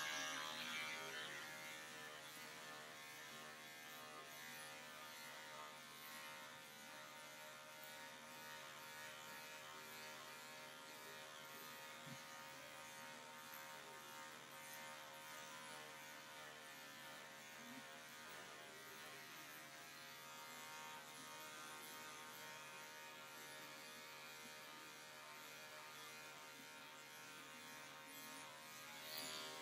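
Cordless pet clipper with a 5-in-1 blade running steadily, a constant electric hum with many overtones, as it shaves down a dog's matted coat.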